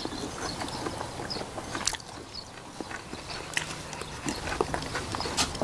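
Several people chewing jokbal (braised pigs' feet), with scattered sharp clicks of chopsticks against dishes.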